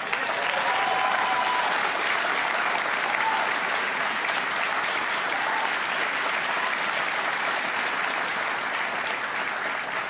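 Audience applauding loudly in response to a speech line, with a few cheers near the start. The applause breaks out suddenly, holds steady, and fades near the end.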